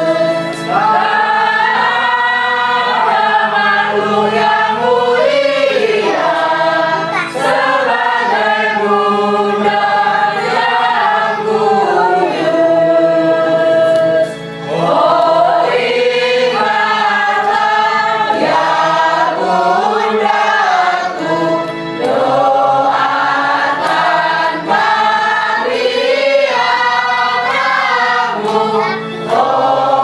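A congregation singing a hymn together, line after line, with brief pauses for breath between phrases.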